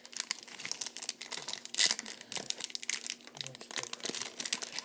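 Silver foil wrapper of a 2015 Bowman Chrome baseball card pack crinkling and tearing as fingers peel it open: a run of irregular crackles, loudest about two seconds in.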